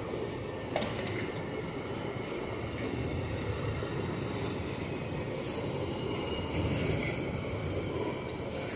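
Freight train gondola wagons rolling past close by: a steady rumble of steel wheels on rail, with a sharp clack about a second in and a faint high wheel squeal.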